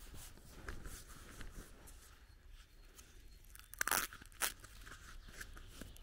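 Footsteps crunching on a dirt and gravel lane, with two louder crunches close together about four seconds in.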